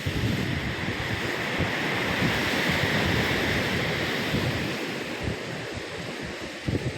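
Ocean surf breaking and washing on the shore, swelling to a peak a few seconds in and then easing off, with wind buffeting the microphone.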